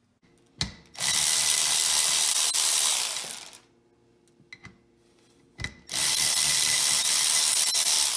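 Cordless electric ratchet spinning bolts out of a Model T differential's ring gear, in two runs of about two and a half seconds each. Each run follows a click as the tool is set on a bolt.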